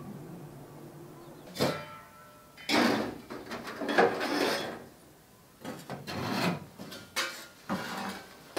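Dry twigs being handled and broken as kindling for a wood-burning stove: a string of short, dry crackling and rubbing bursts.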